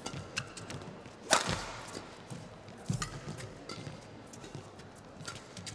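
Badminton rally: a sharp racket strike on the shuttlecock about a second in, with a dull thump near the middle and lighter clicks of footwork on the court.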